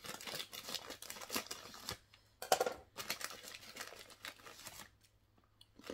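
Thin plastic snack packet of fried sorghum murukku crinkling and crackling as it is cut open and handled, with one louder crackle about two and a half seconds in. It falls quiet near the end.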